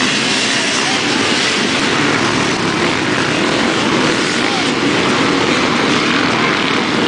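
A pack of dirt bike engines running hard together as a row of riders pulls away from a hare scramble start. The result is a dense, steady drone with single bikes rising and falling in pitch.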